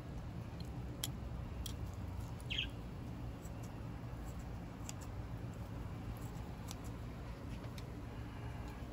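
Kitchen scissors snipping through grilled pork belly with metal tongs, a scatter of sharp clicks from the blades and tongs over a steady low rumble, with one brief high squeak about two and a half seconds in.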